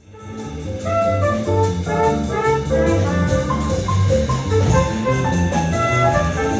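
A brass-led jazz band playing live, a horn melody over a pulsing bass line, fading in over the first second.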